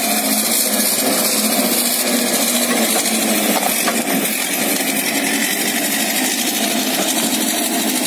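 Tracked logging skidder's diesel engine running steadily under load as the machine crawls past. Its tracks are running and a bundle of choked logs is dragging through snow and brush.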